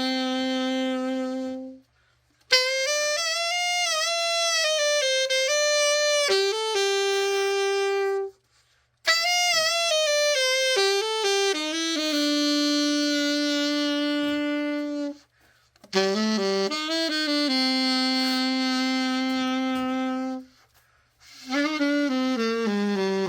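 Selmer Reference 54 alto saxophone, just given a full overhaul, played solo. It plays four melodic phrases with long held notes, each followed by a short pause for breath.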